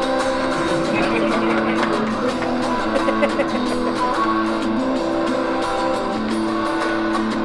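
Music led by an electric guitar, its held notes changing every second or so.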